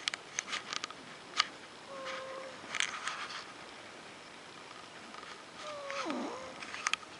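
A sleeping pet snoring: a thin whistling tone on each breath, twice, a few seconds apart, the second one dipping low in pitch as it ends. Several sharp clicks are heard in between.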